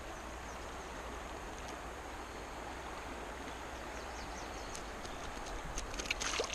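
Steady rush of a high, fast-flowing river, with a few faint clicks near the end.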